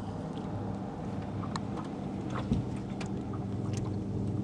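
Boat motor running steadily in a low even hum, with faint scattered ticks and one dull knock about two and a half seconds in.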